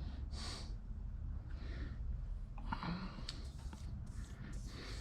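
Surface grinder running with a steady low hum, its wheel giving short hissing swishes every second or so as it passes over a test piece.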